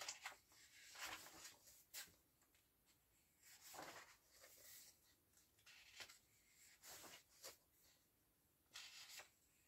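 Faint rustling and swishing of paper as colouring-book pages are turned and smoothed flat by hand, a handful of soft strokes with the clearest about four seconds in and near the end.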